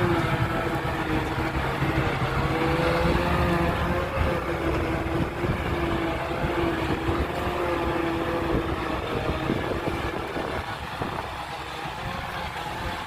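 A vehicle engine running steadily with a slightly wavering whine, easing off and getting a little quieter about ten and a half seconds in.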